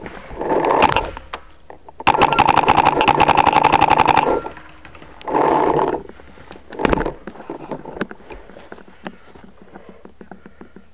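Paintball marker firing a rapid string of shots, about a dozen a second for about two seconds. Shorter noisy bursts come before and after, and a single sharp knock comes about seven seconds in.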